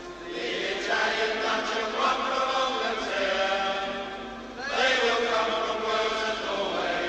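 Football stadium crowd chanting in unison, the massed voices swelling up about a second in and again near five seconds.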